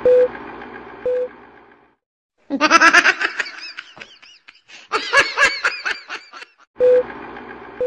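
Film-countdown transition: a short beep about once a second over a steady whirring projector-like noise, heard at the start and again near the end. In between, a baby monkey gives a rapid run of short, high-pitched cries.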